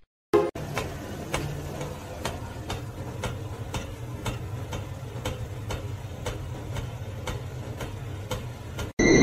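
A regular mechanical ticking, about two ticks a second, over a steady low hum.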